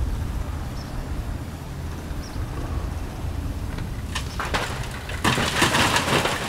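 Bricks and masonry crashing down as a section of a brick storefront façade is pulled down in demolition, with a few sharp cracks just before, about four seconds in. The crash lasts about a second, over a steady low rumble of heavy machinery.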